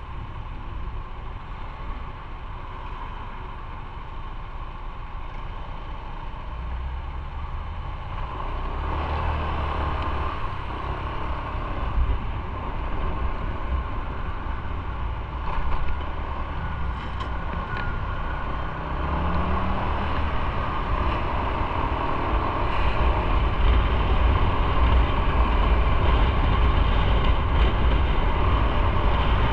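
Motorcycle engine idling while stopped at a traffic light, then pulling away about eight seconds in and riding on, the engine and road noise growing steadily louder.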